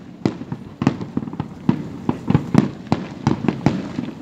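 Fireworks going off in a rapid, uneven run of sharp bangs, about a dozen in four seconds, each with a short echoing tail.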